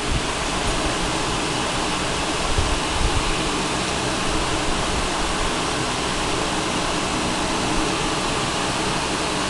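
Steady rushing noise of an electric fan running, with a few small low bumps from the handheld camera being moved about two and a half to three and a half seconds in.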